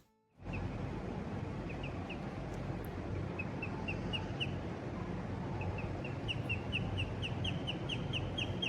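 A small bird or chick peeping: short high chirps, sparse at first, then coming quicker, about two or three a second, over a steady rushing background noise.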